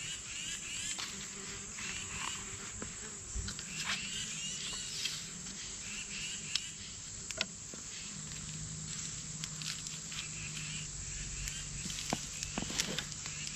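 Insects, cricket-like, chirping in repeated short trains of high-pitched pulses, with a few faint clicks and a low steady hum underneath.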